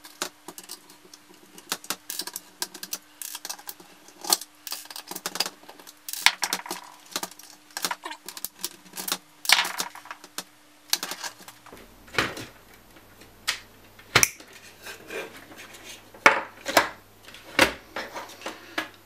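Irregular clicks, taps and clatter of a screwdriver, screws and the sheet-metal and plastic parts of a DVD player being taken apart by hand.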